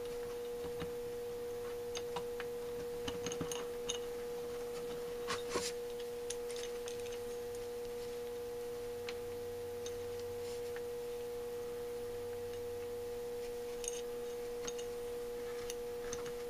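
Light clicks and taps of small metal parts as the lever and linkage of a Holley 4000 teapot choke housing are worked into place by hand. They come a few at a time, mostly in the first six seconds, over a steady humming tone.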